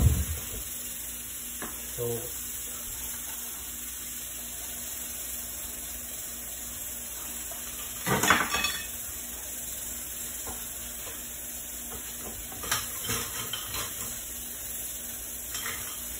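Dishes and metal utensils clattering in a kitchen, with one short burst of clatter about eight seconds in and a few lighter knocks around thirteen seconds, over a steady faint hiss.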